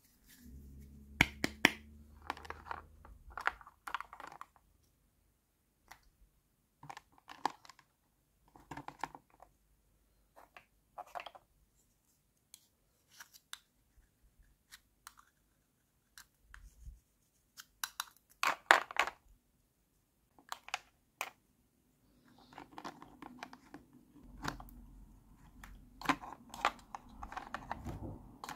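Hard plastic toy kitchen pieces being handled: scattered clicks, taps and short scrapes of plastic on plastic, with quiet gaps between them and a busy run of clicks a little past the middle.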